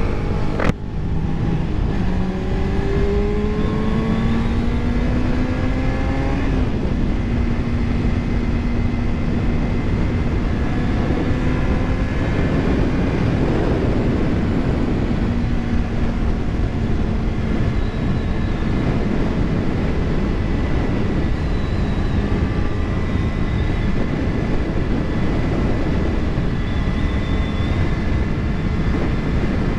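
Sport motorcycle engine pulling hard with its pitch rising over the first few seconds, then running steadily at cruising speed, with wind noise on the microphone. A single sharp knock comes just under a second in.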